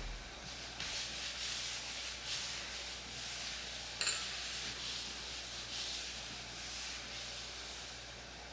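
A cloth wiping down a kitchen counter in uneven rubbing strokes, with a short knock about four seconds in.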